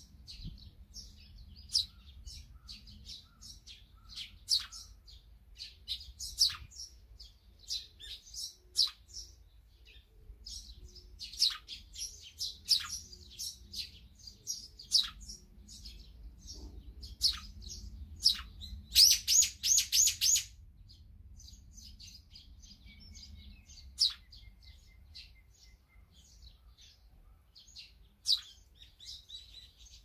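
Small wild songbirds chirping, many short high chirps scattered on and off, with a louder fast run of repeated notes lasting about a second and a half around two-thirds of the way through.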